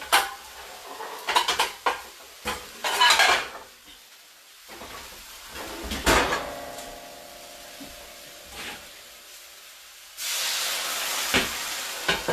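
Pots and pans clattering as they are rummaged through, with one knock about six seconds in leaving a metal pan ringing briefly. About ten seconds in a sudden sizzle starts and runs on: water hitting the hot skillet to steam the cheese.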